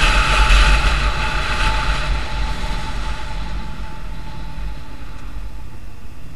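Wind and road noise of a moving vehicle, fading over the first few seconds as it slows, then running on steadily.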